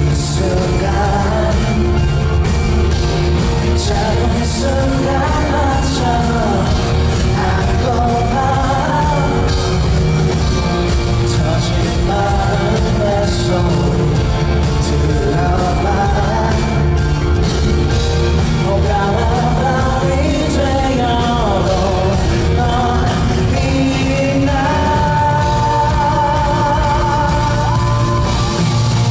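Live pop-rock song played through a concert hall's sound system: a male lead singer over drums and electric bass, the low end heavy and the singing continuous. A long held note comes near the end.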